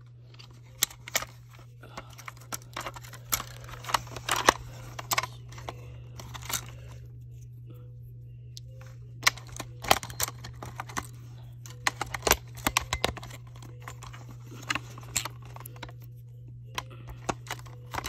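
Irregular plastic clicks and knocks as a battery-powered smoke and carbon monoxide alarm is handled and AA batteries are pushed into its battery compartment, over a low steady hum.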